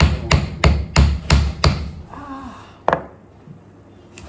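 Large kitchen knife hacking into a hard elephant apple (outenga): about six quick chopping blows, roughly three a second, stopping about two seconds in, then one more blow near three seconds.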